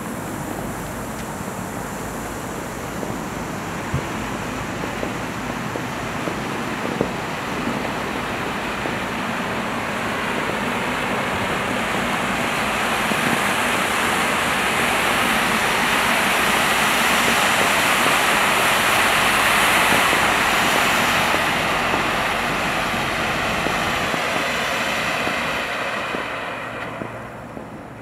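Three firework fountains burning with a steady spraying hiss that swells to its loudest about two-thirds of the way through, then dies away near the end as they burn out. A couple of sharp pops come in the first quarter.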